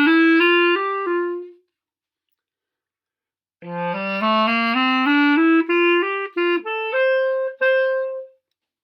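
Clarinet playing an ascending G major scale up to the A, ending about a second and a half in. After a pause of about two seconds it plays the scale again and carries on into a phrase of short separated notes, ending on a longer held note.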